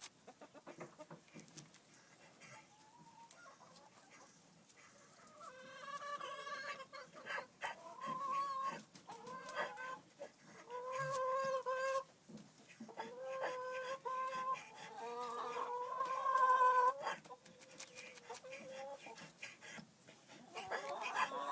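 Quiet honks from a domestic bird: a string of short, pitched calls, one after another, beginning about a quarter of the way in and trailing off near the end.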